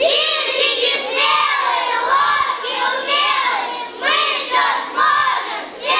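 A group of children chanting together in unison, in short sung phrases with brief breaks between them.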